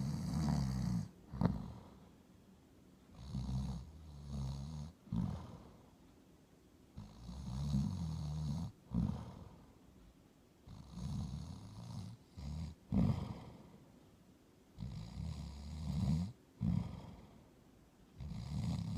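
Snoring: a sleeper's rattling, low-pitched snores recur about every four seconds, six in all, each followed by a short sharp breath and then a quiet pause.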